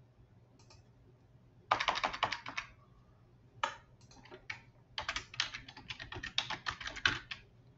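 Typing on a computer keyboard: a short burst of keystrokes about two seconds in, another a little later, then a longer run of rapid keystrokes through the second half.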